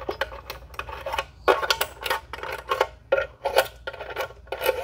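Steel Allen wrench clicking and scraping in the heads of 4 mm Allen screws as they are backed out of a microscope's fluorescence illuminator mount: a run of irregular small metallic clicks and rattles.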